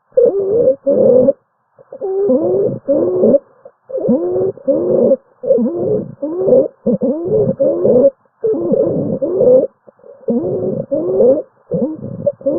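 Stridor: rapid, repeated noisy breaths, each with a wavering, pitched musical tone, coming about once a second. It is the sign of a severely narrowed or obstructed upper airway.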